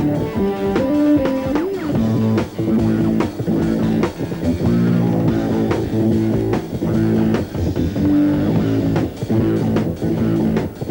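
Live rock band playing an instrumental passage: electric guitar and bass guitar over steady drum hits, with a bent guitar note about a second in.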